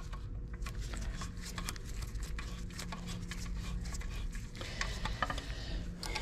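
Scattered light clicks and taps of gloved hands fitting an engine's front timing-belt cover and working its bolts, over a steady low hum.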